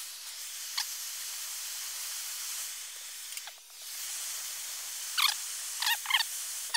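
A handheld gas torch hisses steadily as its flame heats a plastic shroud. The hiss dips briefly a little past halfway, and a few short high squeaks come near the end.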